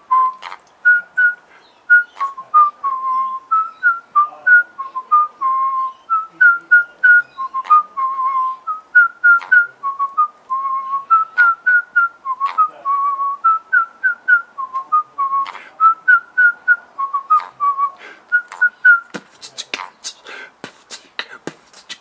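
A person whistling a quick, repeating tune of short notes that hop between two or three pitches, with sharp mouth clicks scattered between them. A little before the end the whistling stops and rapid beatboxed clicks and puffs take over.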